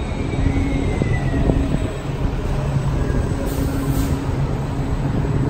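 Side dump truck tipping a load of crushed concrete rubble into a hopper, a steady heavy rumble with a low engine drone that pulses on and off about once a second.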